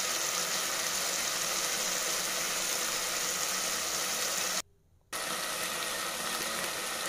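Mutton with onions and spices frying in an open pressure cooker, a steady sizzling hiss that breaks off for about half a second near five seconds in.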